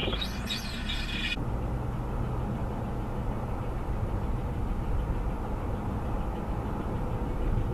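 Car driving with a high, wavering scraping squeal from a wheel's brake, which cuts off abruptly about a second and a half in, leaving steady tyre and road noise. The squeal is probably from a stone chipping caught between the brake pad and the brake disc.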